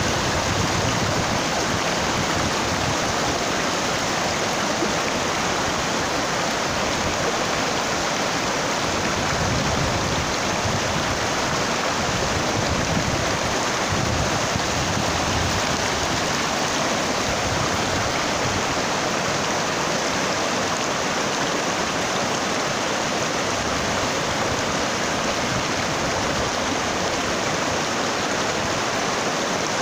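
Shallow, rocky mountain stream rushing and splashing over boulders and cobbles: a steady, even sound of flowing water.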